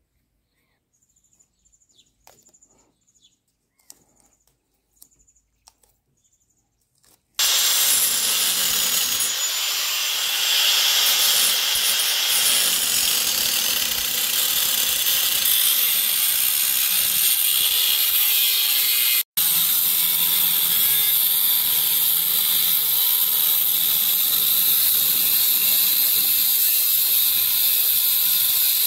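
Handheld angle grinder with a cut-off wheel cutting through a perforated steel muffler cover: a steady, loud cutting noise that starts suddenly about seven seconds in, after near silence with a few faint clicks. It breaks off for an instant around the middle and runs on.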